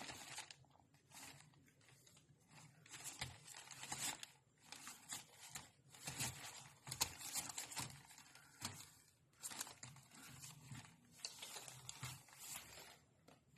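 Faint, irregular scuffling and rustling with soft clicks and taps, the sound of a cat and a dog playing.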